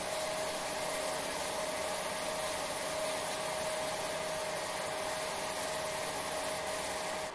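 CNC wood router running steadily while its fine tapered bit carves a layered wood block: an even hiss with a constant high whine and a steady mid tone, cutting off abruptly at the end.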